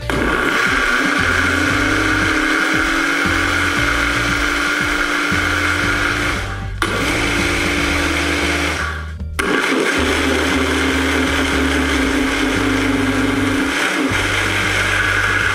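Electric countertop blender with a glass jar running at full speed, churning thick white slime; the motor runs steadily with a constant hum, cutting out briefly about six and a half seconds in and again just after nine seconds before running on.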